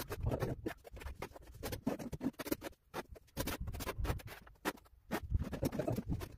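Steel trowel scraping tile adhesive off a hand-held board and spreading it across the ceiling: a quick, irregular run of scraping strokes with short pauses between loads.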